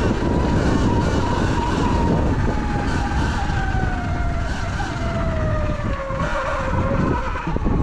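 Sur-Ron Light Bee X electric dirt bike riding, its motor whining with a pitch that falls steadily as the bike slows, over a heavy rumble of wind on the microphone.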